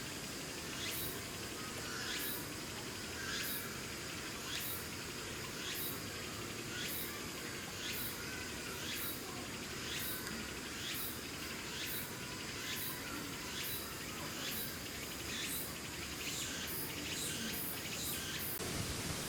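Insects calling in evenly spaced high-pitched pulses, roughly two a second, over a steady background hiss.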